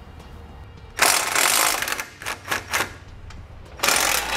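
Hand ratchet with a 10 mm six-point socket clicking as it backs out a core support bolt. A long run of quick clicks comes about a second in, then a few short separate strokes, then another run near the end.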